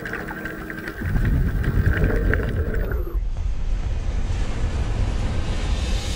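Sound effects of an animated intro: scattered clicking over a thin steady tone, a deep rumble setting in about a second in, then from about three seconds a rushing, wind-like whoosh that grows brighter.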